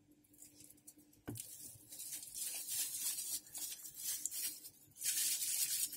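Plastic bubble-wrap bags crinkling and rustling as hands handle speaker parts in a cardboard box. It starts with a click about a second in and gets louder near the end.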